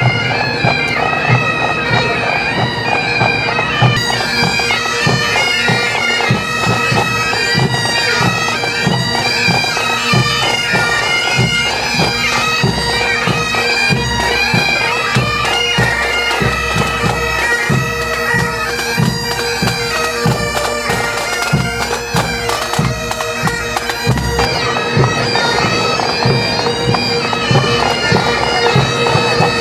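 Pipe band playing on the march: Highland bagpipes sounding a melody over their steady drones, with snare, tenor and bass drums keeping a regular beat.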